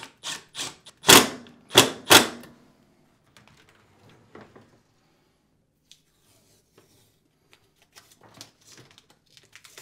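Cordless impact driver fired in several short bursts, its hammering rattle driving screws home into the dishwasher door hinge, the bursts near the second and third seconds the loudest. After that come only faint clicks and rustles of parts being handled.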